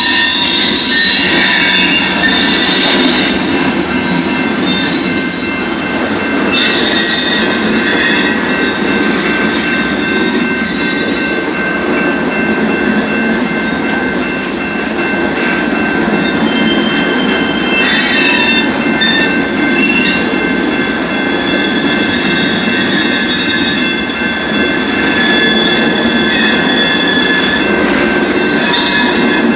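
Freight train's covered hopper cars rolling past, with a steady rumble of steel wheels on rail and high, drawn-out squealing from the wheels that comes and goes.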